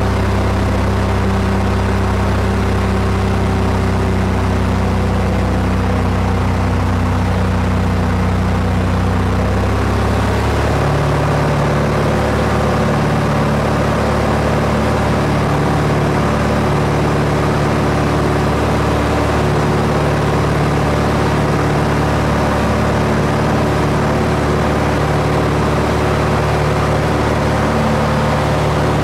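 Aircraft engine droning steadily during flight. Its pitch shifts to a new steady note about ten seconds in.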